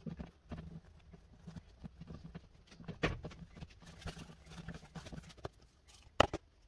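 Firm, fridge-chilled butter being rubbed down a hand grater: a run of short, uneven scraping strokes, with a sharper knock about three seconds in and two more near the end.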